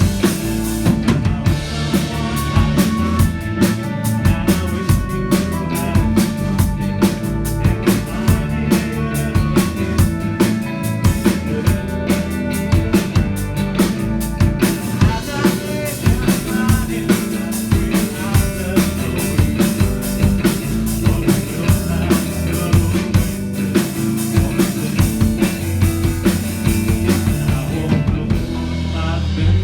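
Live band playing an instrumental stretch of a rock song: a drum kit keeps a steady beat under sustained guitar and bass.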